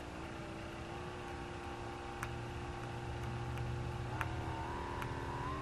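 Cotsoco massage gun's motor running with a steady hum that steps up in pitch three times as its speed level is raised by pressing the button, with a couple of faint clicks.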